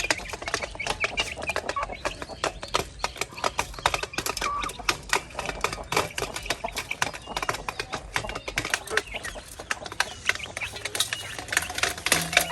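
Chickens clucking while pecking at feed, their beaks tapping rapidly and unevenly.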